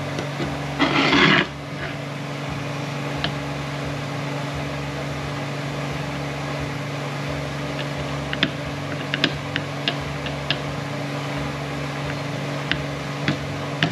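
Hand reamer being turned in an accumulator bore of a 6T70 transmission valve body, giving scattered light metal clicks in the second half, over a steady shop hum. A brief loud noisy burst comes about a second in.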